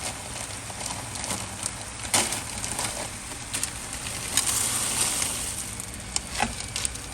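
A pot of chouriço, bacon and tomato sauce sizzling on the stove, with scattered clicks and knocks, the loudest about two seconds in and again past the middle.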